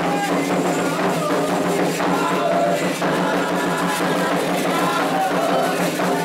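Candomblé ritual music: voices singing a chant over drums and other percussion keeping a steady rhythm.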